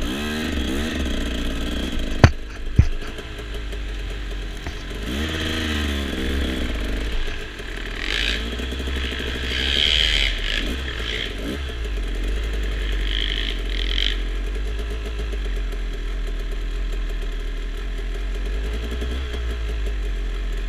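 Several dirt bike engines running and revving, their pitch rising and falling near the start and again around five to seven seconds in, then settling to a steady run. Two sharp knocks about two seconds in are the loudest sounds.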